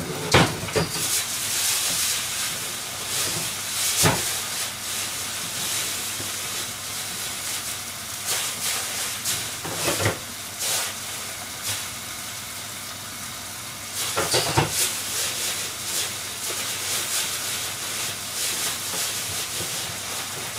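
Steady sizzling hiss of hamburger patties frying in a pan. A few sharp clicks or pops are scattered through it, with a cluster of them about two-thirds of the way in.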